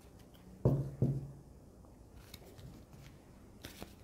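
Tarot cards being handled and shuffled in the hands: soft card-on-card flicks and slides, with a few quick flicks near the end. A short low vocal hum about a second in is the loudest sound.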